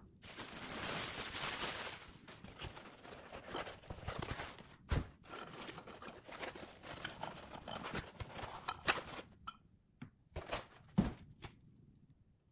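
Plastic wrapping rustling as it is pulled off a foam-packed resin 3D printer, loudest in the first two seconds. Then handling of foam packing and printer parts, with scattered rustles, clicks and two sharp knocks, about five and eleven seconds in.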